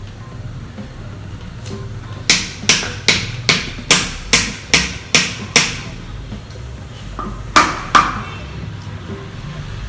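A knife striking a fresh coconut, about nine sharp knocks at two or three a second, then after a pause two more near the end.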